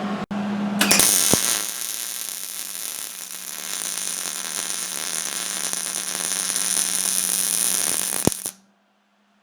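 MIG welding arc from a Hobart 210 MVP wire-feed welder laying a bead: a steady hiss that starts about a second in and stops abruptly near the end, leaving only a faint hum.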